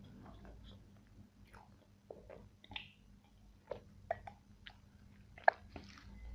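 Close-miked chewing and mouth sounds: soft, scattered clicks and smacks, with a sharper click about five and a half seconds in.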